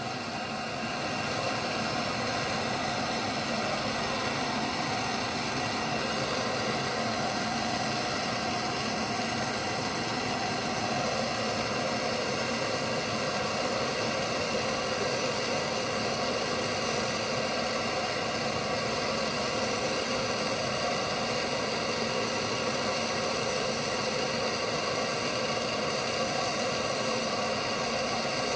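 Handheld gas torch burning with a steady, even hiss as its flame heats a small steel part to red heat for oil blackening.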